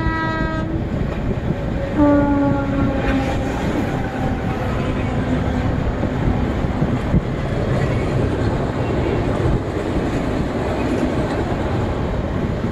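Indian Railways train running with a steady rumble and clickety-clack of wheels on rail. A train horn ends just under a second in, and a second horn sounds about two seconds in, its pitch sliding down as it fades over several seconds, as a train passing on the next track does.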